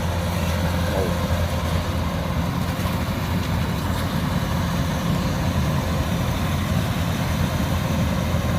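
Kubota DC105X combine harvester's diesel engine running steadily under load while it harvests rice: a constant low drone with a wash of machine noise over it.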